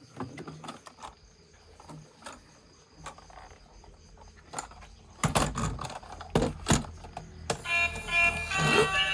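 Light clicks and handling noises, then several loud knocks a little past the middle. About seven and a half seconds in, a loud electronic sound of several held tones starts.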